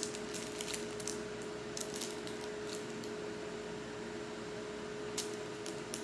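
Kitchen range hood fan running with a steady hum. Short clicks and crackles sound over it in the first few seconds and again near the end.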